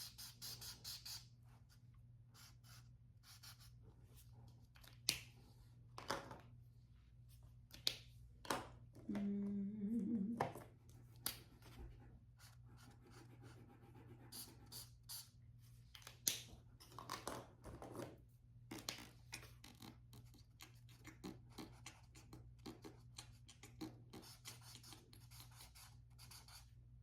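Marker strokes scratching on paper, short and irregular, over a steady low hum, with a brief low tone lasting about a second and a half about nine seconds in.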